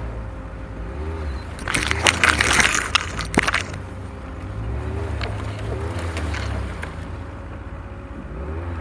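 Off-road vehicle engine running at low speed. About two seconds in, branches scrape and snap against the vehicle's body in a loud crackling clatter lasting almost two seconds, followed by a few lighter scrapes and ticks.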